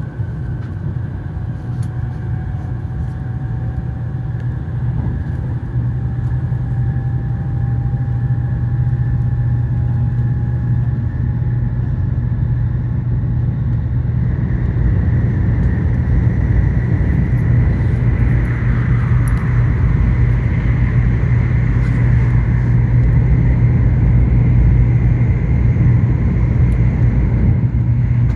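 Running noise of an N700S Shinkansen train heard inside a passenger car: a steady low rumble, getting gradually louder, with a faint whine that rises slowly in pitch over the first half, as the train gathers speed.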